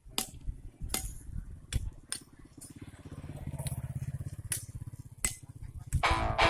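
Several sharp metallic clinks at irregular intervals, like tools striking metal, over a low engine running underneath that swells in the middle. A louder clatter comes near the end.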